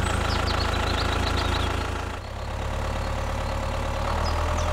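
Tractor engine idling steadily at low revs, dipping briefly about two seconds in before settling back to the same even running.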